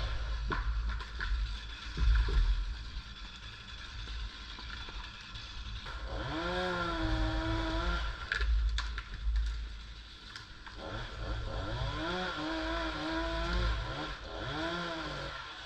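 Chainsaw engine revving up, held at speed for a couple of seconds and dropping back, twice, with a few sharp knocks in between.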